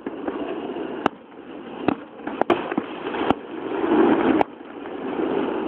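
Fireworks: sharp cracks about five times over a steady rushing noise that swells and then drops off abruptly about four and a half seconds in.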